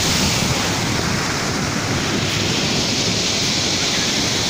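Small waves breaking and washing up the beach in a steady rush, with wind buffeting the microphone.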